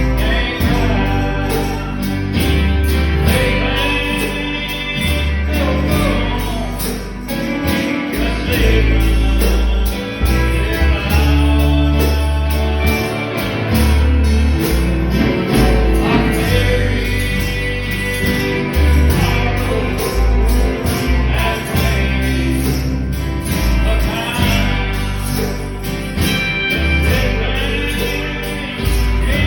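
Music with singing over a band, with a strong bass line changing notes every second or so.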